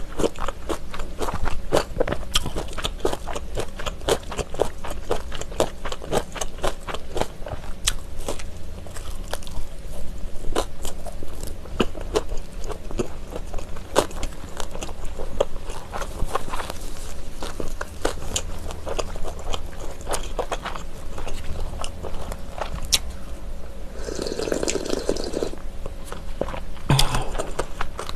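Close-miked chewing of mayak gimbap, a small seaweed-wrapped rice roll, with many quick, wet mouth clicks and smacks. Two short, louder noises come near the end.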